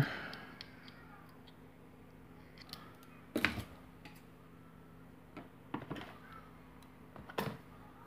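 A few short, sharp metal clicks and clacks from a multi-tool's pliers and a metal padlock being handled on a workbench, the loudest about three and a half seconds in, over a faint steady low hum.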